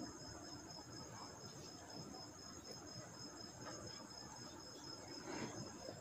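Faint background hiss with a steady high-pitched whine or trill. The sewing machine cannot be heard.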